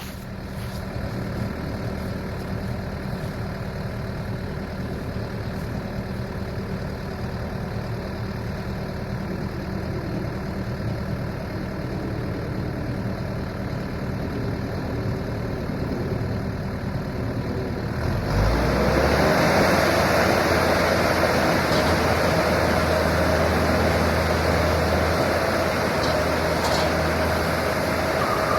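Case 445 skid steer's diesel engine running steadily, then revving up sharply about two-thirds of the way through and staying loud under load.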